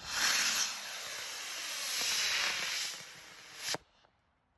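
A model rocket's solid-fuel motor firing at liftoff: a loud, rushing hiss that starts abruptly, holds for about three seconds and dies away as the motor burns out. A short sharp pop follows, then the sound cuts off.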